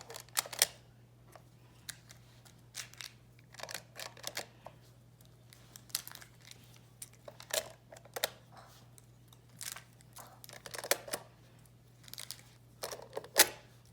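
Plastic magnetic building tiles clicking and clacking against each other as they are handled and fitted together, in irregular clicks with a louder clack near the end.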